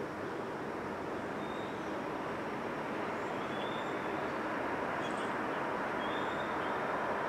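Distant electric passenger train approaching on the line, a steady rushing rumble that grows slowly louder.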